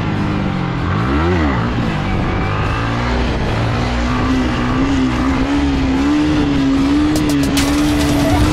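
Motorcycle engine running while riding. It revs up and back down once about a second in, then holds a steady pitch that creeps slowly higher, with a few sharp ticks near the end.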